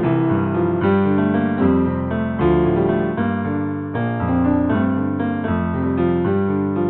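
Instrumental piano music, with chords and notes that sustain and overlap one another.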